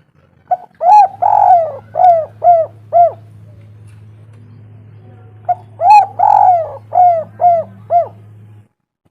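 Spotted dove (tekukur) singing its cooing song twice, each phrase a short note, a longer rolling coo and then four or five short coos, about five seconds apart. A steady low hum sits under the song.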